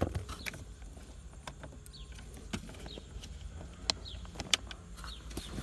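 Scattered sharp clicks and taps of plastic trim being handled and pushed into the gear shifter console, the two loudest about four and four and a half seconds in, over a low steady hum. Birds chirp briefly several times in the background.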